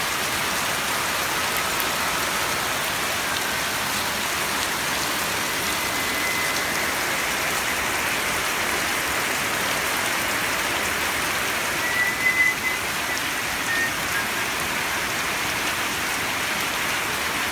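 Steady rain falling, an even hiss throughout, with a brief high tone standing out about twelve seconds in.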